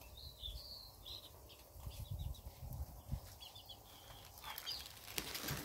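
Small birds chirping faintly, short high chirps scattered through, over a low rumble. A faint hiss begins near the end.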